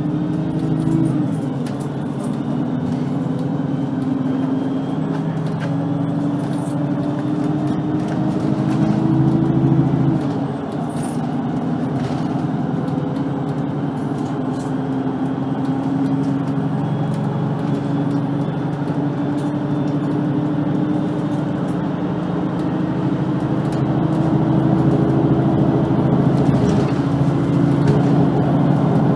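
VDL Citea LLE-120 city bus engine pulling under load as the bus drives. Its pitch climbs and then drops suddenly about a second in and again about ten seconds in, at gear changes, before settling into a steadier run that grows a little louder near the end.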